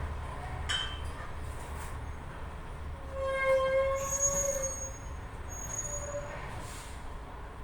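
A metallic squeal lasting about a second and a half, near the middle, over a steady low hum: metal parts of a hydraulic piston pump squealing as they are pressed together with a homemade press tool.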